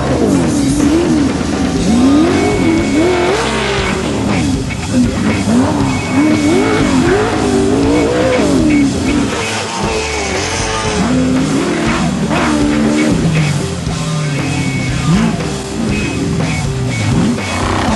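Race vehicle's engine revving up and down over and over as it is driven hard, its pitch rising and falling every second or so.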